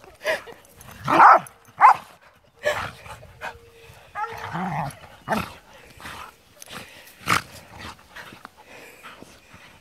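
Dogs play-wrestling, growling and barking in short, irregular bursts, loudest about a second in.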